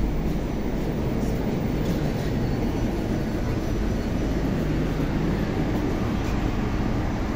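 Steady low rumble and hiss of a Moscow Metro 81-765 'Moskva-2019' train car.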